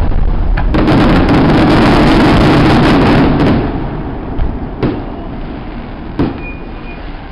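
Fireworks finale: a loud, dense barrage of bursting shells and crackle that stops about three and a half seconds in, followed by two last single bangs and a fading rumble.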